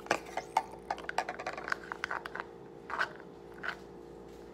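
Plastic spoon stirring slime in a plastic bowl: a quick run of small clicks and scrapes for the first two seconds or so, then a couple of single taps.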